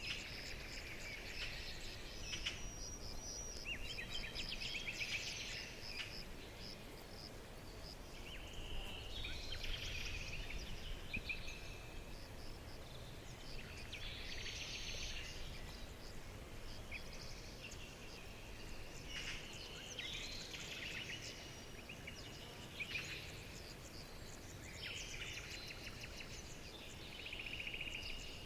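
Several songbirds chirping and trilling on and off, in short bursts of rapid notes, over a steady low background hiss.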